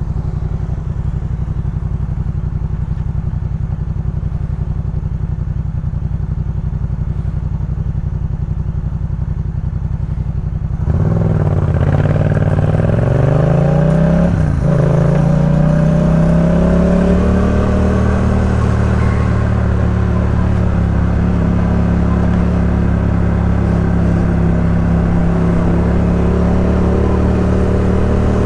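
2018 Yamaha MT-07's parallel-twin engine through a Jeskap K4 full exhaust, running steadily at low revs. About eleven seconds in it gets louder and the revs climb as the bike accelerates, with a brief break part way through the rise, then it settles into a steady, higher-pitched run.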